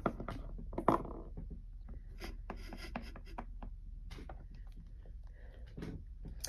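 Handling noise on a wooden tabletop: two sharp taps of a small plastic toy being set down in the first second, then soft rubbing and rustling.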